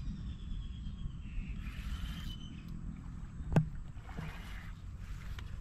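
Steady low rumble of wind on the microphone, with two short bursts of hiss and one sharp knock about three and a half seconds in.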